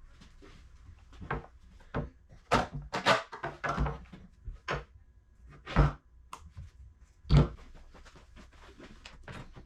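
A run of irregular handling knocks and clicks from hard objects being picked up, moved and set down, with two louder thumps about six and seven and a half seconds in.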